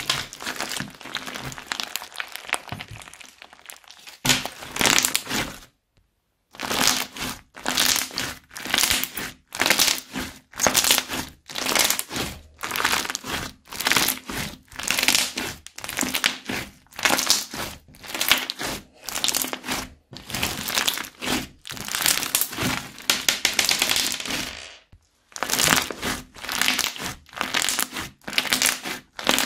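Hands squeezing and stretching a big lump of fluffy crunchy slime packed with beads and cut plastic straw pieces, giving a steady run of crackly, squishy pops, somewhat more than one squeeze a second. It breaks off into silence twice, briefly about six seconds in and again a few seconds before the end.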